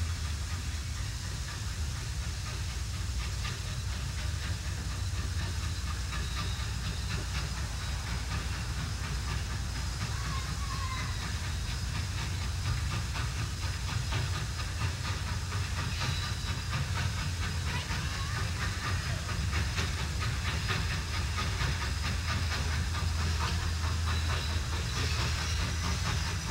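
Former Huntington & Broad Top Mountain 2-8-0 No. 38, a 1927 Baldwin Consolidation steam locomotive, approaching slowly: steam hissing over a steady low rumble, growing a little louder near the end.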